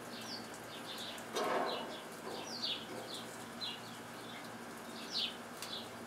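Small birds chirping: a run of short, falling chirps, about two a second, with a brief louder hiss about a second and a half in.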